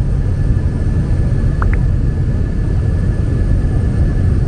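Small passenger plane's propeller engine running steadily in cruise, heard from inside the cabin as a loud, even low drone. A faint steady high tone sits over it, and a short double chirp comes about a second and a half in.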